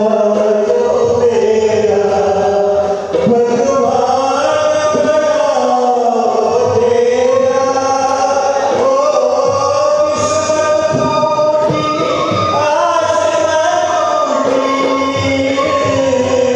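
A man singing a slow, drawn-out melody in long held notes.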